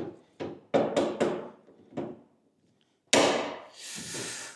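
Metal clamps knocking and clanking together as they are handled: several sharp knocks in the first two seconds, then a loud clatter about three seconds in that trails off into a rattle.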